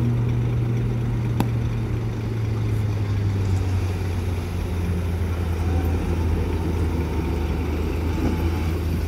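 Heavy diesel dump-truck engines running steadily while the trucks tip soil from their raised beds, with the engine note dropping a little in pitch about three seconds in. A single short click about a second and a half in.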